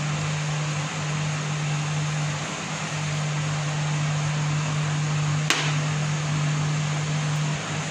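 A steady hum and hiss of a running fan, and about five and a half seconds in a single sharp clink of a metal spoon against a small glass bowl while powder is stirred.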